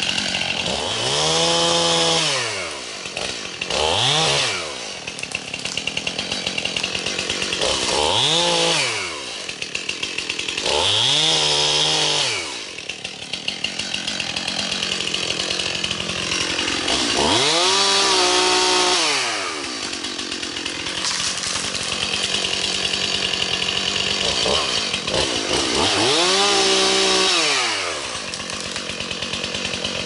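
Gas chainsaw hinge-cutting small trees. The engine revs up and falls back to idle six times, each rev lasting one to two and a half seconds, with the saw idling in between.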